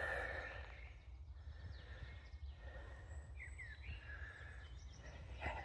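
Outdoor ambience: a steady low rumble of wind with a few faint, short bird chirps, the clearest a quick pair a little past halfway.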